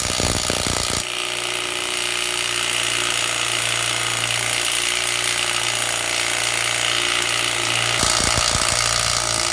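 Milwaukee M12 3/8-inch cordless impact wrench hammering steadily on a tight wheel lug nut at its second power setting, working to break the nut loose.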